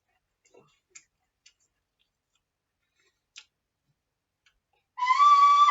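A few faint, sharp clicks and taps with near silence between them, then about five seconds in a loud, high, flute-like whistling tone starts, holding one pitch with small up-and-down steps.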